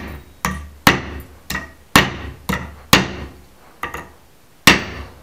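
Small hammer striking a spinnerbait's metal blade to flatten it: about nine sharp blows, roughly two a second, each ringing briefly, with a short pause before the last one.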